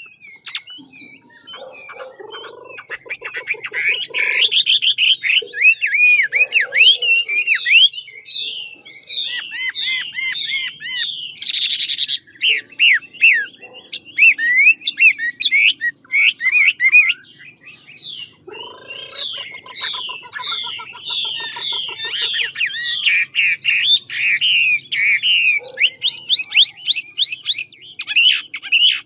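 Chinese hwamei (Garrulax canorus) singing a long, varied song of rapid whistled phrases and trills, rising and falling notes one after another. There is a short harsh note near the middle and a brief pause about two-thirds of the way through.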